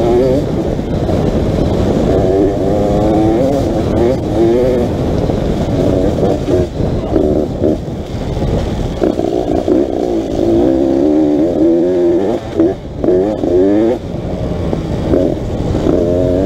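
Beta RR 300 two-stroke enduro motorcycle engine under way on a dirt track, its pitch rising and falling again and again as the throttle is opened and eased. There is a brief drop in the engine sound about thirteen seconds in.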